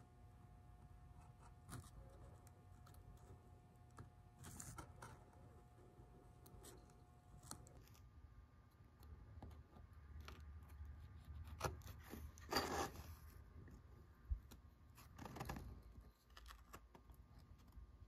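Faint scraping of a wood carving knife shaving and cutting into a small wooden lure body, in scattered short strokes, the loudest about twelve seconds in.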